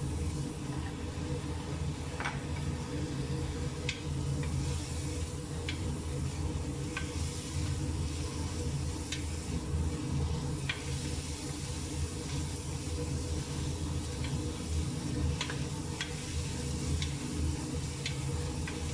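Wooden spatula stirring meat and onion as they fry in a stainless steel pressure cooker pot, with a light sizzle and scattered sharp taps and scrapes of the spatula against the pot. A steady low hum runs underneath.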